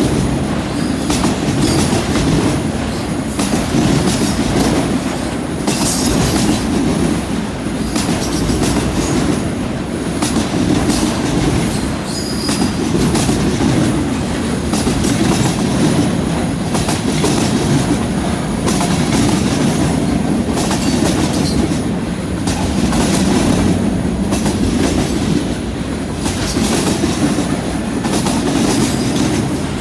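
Freight cars of a passing train rolling by: a steady rumble of steel wheels on rail, broken by frequent clacks as the wheels cross rail joints and switch points.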